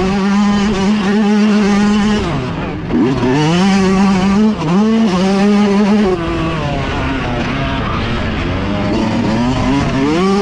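Motocross dirt bike engine running at high revs. Its pitch holds steady, then drops and climbs back again several times as the throttle is shut and reopened. It settles to a lower, steadier note for a few seconds and rises again near the end.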